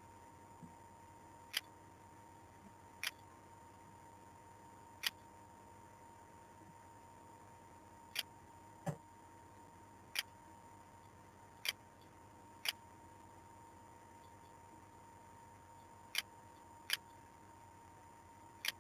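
Computer mouse button clicks: about a dozen single sharp clicks at irregular intervals, over a faint steady tone and hiss.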